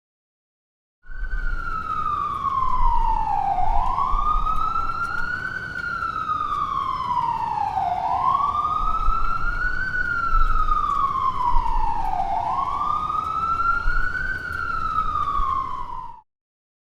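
Ambulance siren wailing: a slow fall in pitch followed by a quicker rise, cycling about every four seconds, over a steady low rumble. It starts about a second in and cuts off suddenly near the end.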